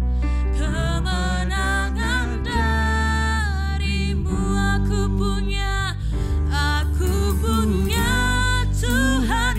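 Slow, gentle gospel worship music played live by a band: a sung melody with vibrato over keyboard and sustained bass notes.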